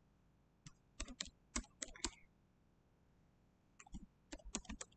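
Typing on a computer keyboard: scattered keystrokes through the first two seconds, a pause of over a second, then a quicker run of keystrokes near the end.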